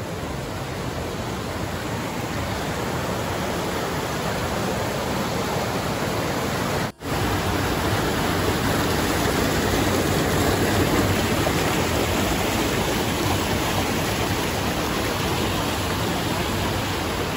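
A rocky mountain creek rushing over boulders and small cascades: a steady, even rush of water. It cuts out for an instant about seven seconds in.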